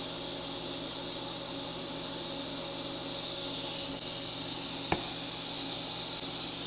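Steady hiss with a faint low hum from a TIG welding setup on thin stainless steel. The arc goes out partway through without much change in the sound. One sharp click about five seconds in.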